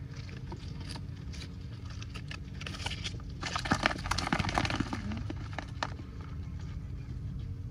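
Woven bamboo fish trap being shaken and emptied: scattered rustling and tapping, then a burst of rattling and clatter about three seconds in, lasting about two seconds, as the catch spills into a plastic basin.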